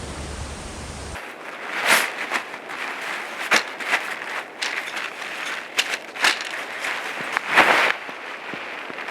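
A tent and camping gear being handled while it is pitched: irregular rustling and crunching with sharp clicks and knocks. A low steady hum stops abruptly about a second in.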